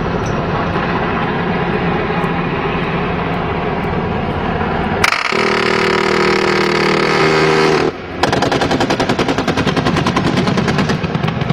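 Helicopter engine and rotor noise. About five seconds in it gives way to a sudden louder rushing sound with a steady hum. About eight seconds in, a long rapid burst of automatic fire from the AH-1 Cobra's 20 mm turret cannon lasts about three seconds.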